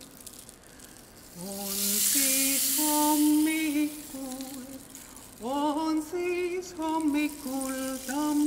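A woman sings a slow folk melody, holding long notes and moving between them. A rainstick's soft rushing hiss is heard under the voice from about a second and a half in to about three and a half seconds.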